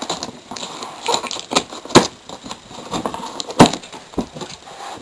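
A parcel being opened by hand: irregular crackling and rustling of packaging with short sharp snaps, the two loudest about two seconds in and again a second and a half later.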